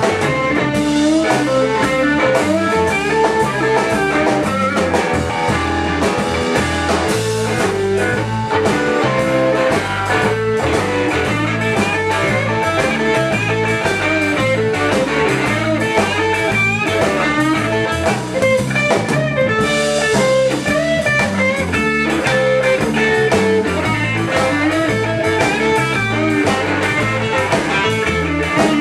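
Live blues-rock band playing: electric guitar over electric bass and drum kit.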